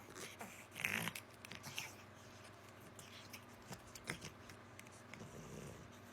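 A cat playing: scattered soft rustles and short clicks, loudest in a cluster about a second in.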